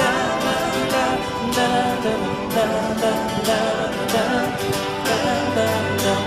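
Background pop song with singing, guitar and a steady beat.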